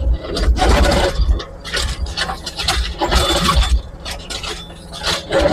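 Excavator bucket scraping and breaking up concrete and rubble in several grinding bursts with heavy knocks, over the steady running of the excavator's engine.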